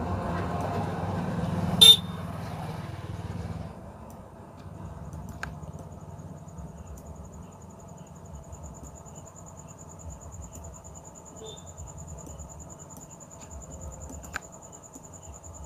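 Background noise: a rumble like a passing vehicle for the first few seconds, with one short sharp sound near two seconds that is the loudest moment. After it comes a low steady hum with a steady high insect trill and two faint clicks.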